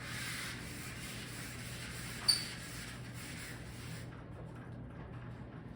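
Writing sounds: a scratchy hiss for about four seconds, with one sharp click about two seconds in.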